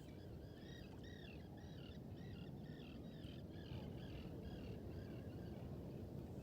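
A flock of birds calling in quick, short, arched notes, several a second, over a steady low rumble of the river. The calls thin out a little over halfway through.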